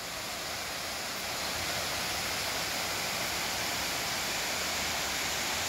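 Waterfall rushing steadily, growing a little louder over the first two seconds.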